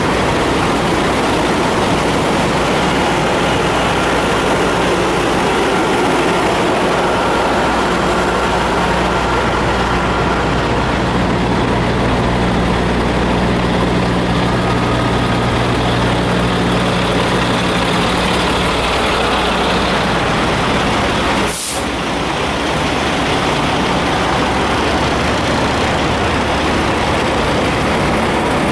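Diesel semi-truck engines idling, a steady low hum under constant background noise. The hum grows stronger for several seconds in the middle, and a brief click with a short dip in level comes about three quarters of the way through.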